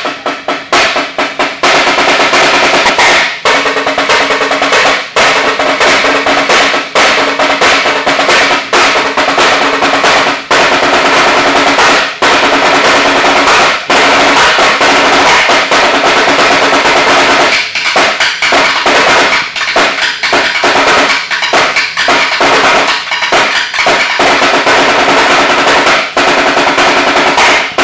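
Two marching snare drums played together as a duet: fast rolls and rapid stick patterns, very loud. In the second half the rolls break up into more separated, accented hits.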